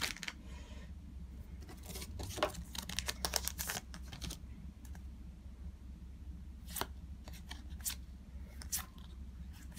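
Paper trading cards being handled and slid off a stack one by one: a scatter of soft clicks and rustles, busiest about two to four seconds in and then single ticks, over a low steady hum.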